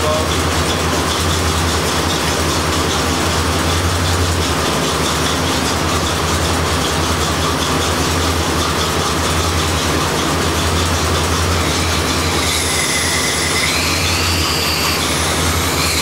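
1985 Corvette's tuned-port-injected V8 idling steadily with the A/C running. From about three-quarters of the way in, a high squeal glides up and down in pitch as residual R-12 pressure escapes at the can tap.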